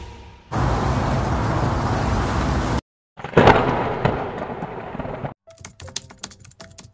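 Video-intro sound effects: a loud steady noise that cuts off suddenly, then an explosion effect, a sudden hit that dies away over about two seconds. After that comes a quick run of sharp clicks with a few short tones.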